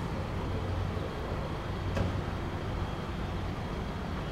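Distant Airbus A321 airliner's CFM56 jet engines running, a steady low rumble with a faint high whine held throughout. A faint tick about two seconds in.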